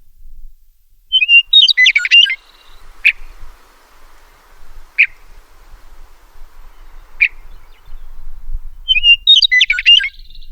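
Meadowlark singing: two quick, jumbled song phrases of about a second each, some seven seconds apart, with three short single call notes spaced between them.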